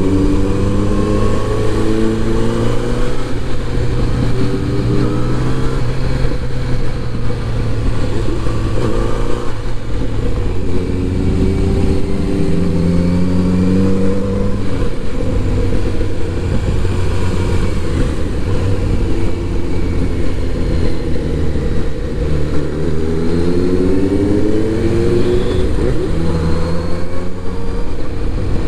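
Kawasaki inline-four motorcycle engine under way, its pitch climbing in short steps as it accelerates up through the gears three times, with steadier running in between.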